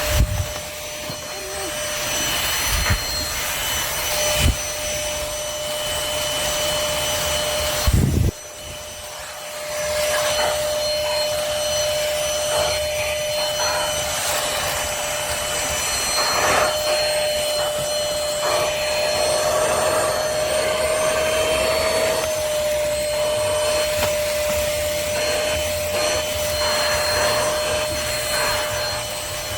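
Trucozie cordless stick vacuum running steadily with a high motor whine and rushing suction, its attachment rubbing and knocking against the floor a few times. The sound dips briefly about eight seconds in, then carries on.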